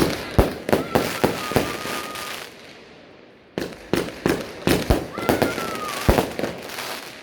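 Small home fireworks going off in two quick bursts of sharp bangs and crackles. A thin, slightly falling high whistle runs through each burst for about a second.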